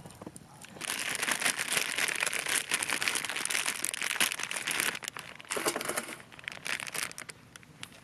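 Plastic food packet crinkling loudly as it is handled. The crinkling starts about a second in, breaks off briefly around five seconds, comes back in bursts and stops a little before the end.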